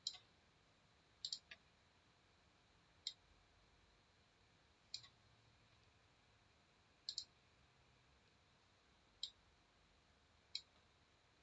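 Computer mouse clicking now and then, single clicks and quick pairs a second or two apart, against near silence.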